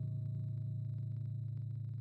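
A low, sustained ringing tone with several overtones above it, holding almost level and fading only slightly: a drone in the video's background music or sound effect.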